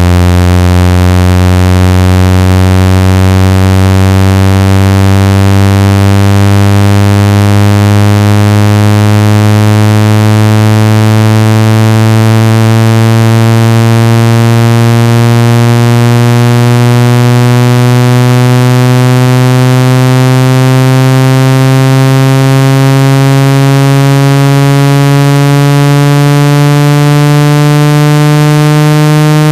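Phone speaker water-ejection tone: a loud, synthetic, low buzzing tone rich in overtones, its pitch rising slowly and steadily, meant to shake trapped water out of a phone or earphone speaker.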